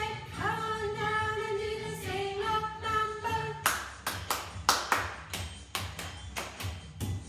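A woman singing a short melody line, followed by steady rhythmic clapping at about three claps a second.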